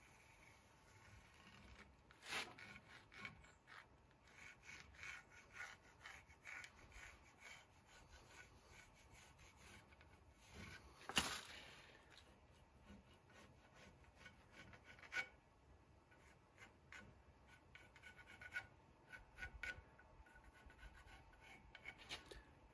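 Faint rubbing and scraping of a hand and tools on a wooden axe-handle blank on the bandsaw table, with scattered small clicks and a few sharper knocks, the loudest about eleven seconds in.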